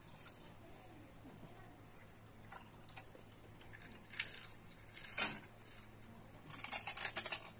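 A steel spoon dipping into a steel bowl of spiced pani and pouring it into hollow puris: short splashes and trickles of liquid, a sharp clink about five seconds in, and a longer spell of splashing near the end.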